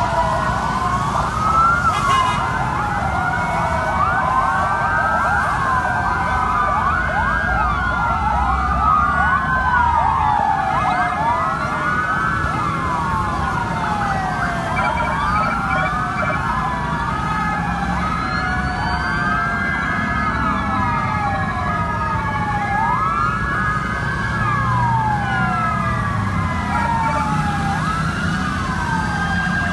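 Several ambulance sirens wailing at once, their rising and falling sweeps overlapping out of step, over a low rumble.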